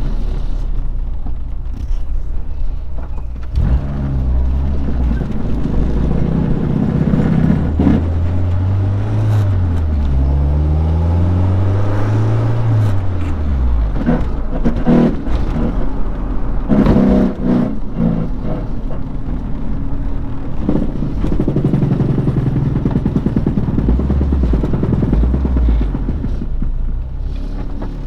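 Honda del Sol's B20 four-cylinder engine running while the car is driven, its pitch climbing and dropping repeatedly as it accelerates and shifts, with a few sharp knocks along the way.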